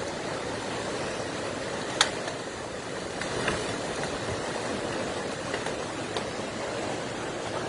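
Steady rushing of a fast-flowing, flood-swollen river, an even roar of water with no change in level. A single sharp click about two seconds in.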